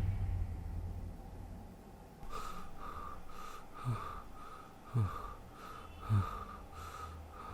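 Horror sound design: the echoing tail of a loud hit fades out over the first second or so. Then comes a faint, even pulsing about twice a second, with three short deep sounds that fall in pitch, about a second apart.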